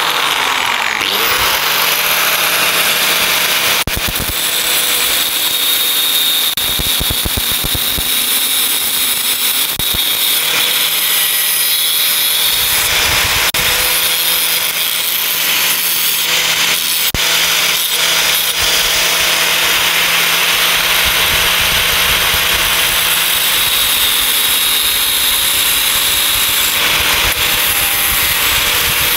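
Electric angle grinder switched on and spinning up, then grinding steadily at a small steel disc held in locking pliers: a constant motor whine under a loud grinding hiss, trimming the disc into a plug for a hole.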